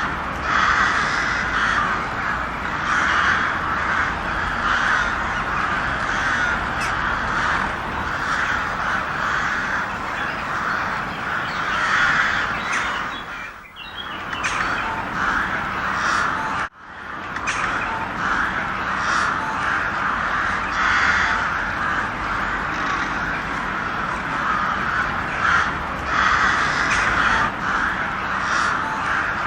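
A flock of crows cawing, many calls overlapping into a near-continuous din. It dips briefly about halfway through and cuts out for an instant just after, then carries on.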